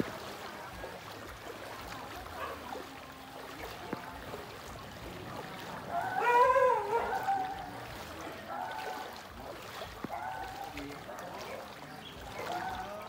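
Legs wading through knee-deep floodwater, with steady sloshing and splashing and faint voices in the background. About six seconds in, a louder wavering call rises over it for about a second.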